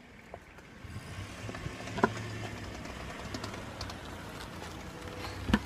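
A minivan driving slowly past, its engine a low steady hum from about a second in. Two sharp knocks, about two seconds in and near the end, stand out above it.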